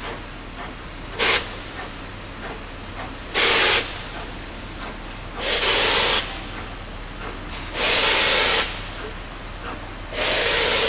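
Baldwin steam locomotive blowing steam from its cylinder drain cocks in loud hisses: one short hiss about a second in, then four longer hisses roughly two and a half seconds apart.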